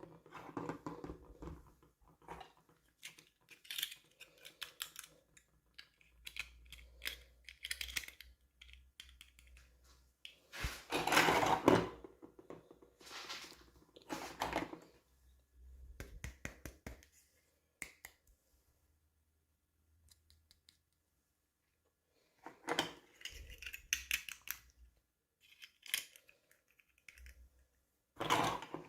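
Packaging being handled and opened: rustling, crinkling and light clicks in irregular bursts. The loudest burst comes a little before the middle, and there is a few seconds' pause about two-thirds of the way through.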